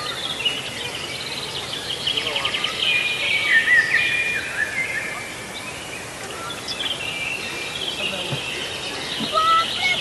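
Many small birds chirping and trilling at once, a dense chorus of quick trills and short gliding calls.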